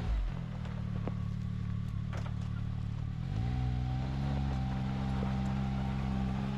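2022 Can-Am Maverick X3 XRC's turbocharged three-cylinder engine running at low revs as the side-by-side moves slowly. The revs drop with a brief low thump at the start, then step up a little about three seconds in and hold steady.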